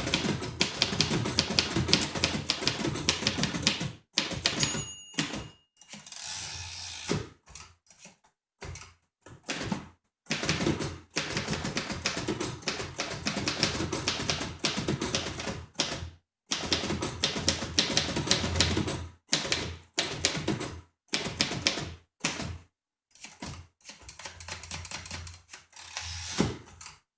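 1948 Royal Quiet De Luxe manual typewriter being typed on in quick runs of key strikes with short pauses. About five seconds in the margin bell dings once, followed by the carriage being returned.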